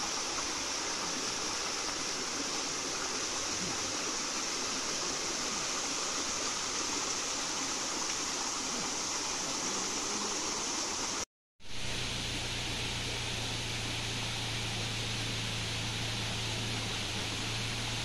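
Shallow rocky stream running over stones, a steady sound of flowing water. It cuts out briefly about eleven seconds in, and after the break a steady low hum runs under the water sound.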